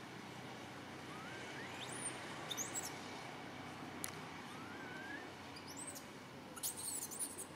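Baby macaque giving short, very high-pitched squeaks, scattered at first and then in a quick cluster near the end. Between them come two fainter rising whistles over a steady background hiss.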